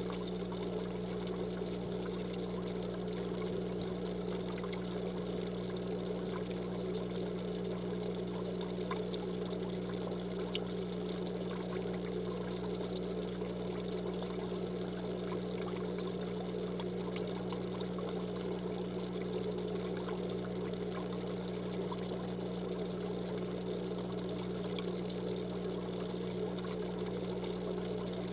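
Aquarium filter running: water trickling and splashing steadily over a low, even hum.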